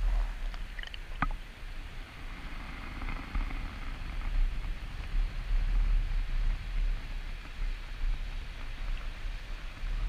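Shallow surf washing over the sand at the water's edge, with wind rumbling on the microphone. A sharp click and a few brief high chirps come about a second in.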